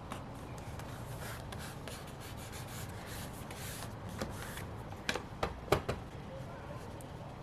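Stationery being handled on a desk while a planner page is decorated: soft paper rustling, then four sharp clicks and taps in quick succession a little after five seconds in.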